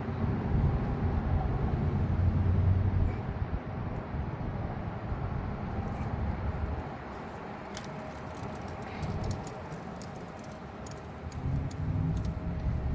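A low rumble, loudest over the first few seconds and again near the end, with scattered light clicks in the second half from hand tools being handled.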